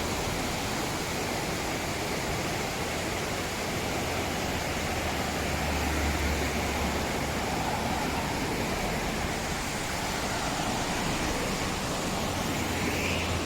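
Waterfall on a mountain river: falling water rushing steadily in a continuous, even hiss.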